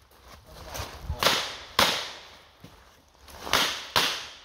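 Smith & Wesson 929 revolver in 9x19 mm firing four shots in two pairs, each pair about half a second apart, with a short echo trailing each shot.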